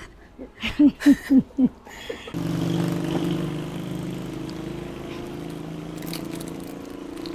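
A quick run of about five short, falling voice-like calls, then from about two seconds in a steady engine hum that holds a constant pitch.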